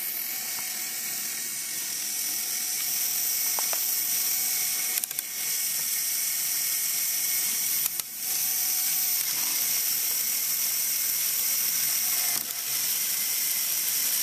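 Lego Technic gearbox running under a Power Functions medium motor: a steady whir of plastic gears and belt, broken by brief clicks about five, eight and twelve seconds in.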